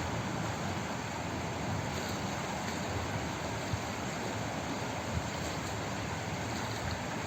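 Flowing water making a steady, even rushing noise, with no separate splashes or drips standing out.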